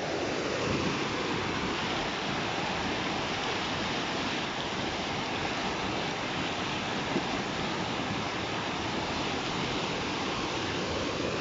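Rough, fast-moving water rushing steadily, an even unbroken noise.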